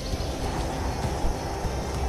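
Strong wind buffeting the microphone: a heavy, uneven low rumble.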